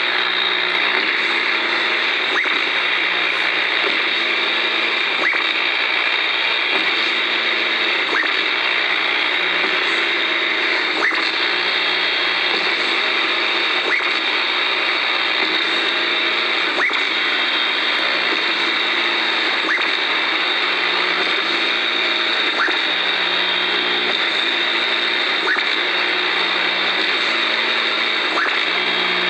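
Loud, steady static and electrical interference from old television sets picked up by an AM radio: a hiss with a low buzz that switches back and forth between two pitches in a steady rhythm, and a few faint crackles.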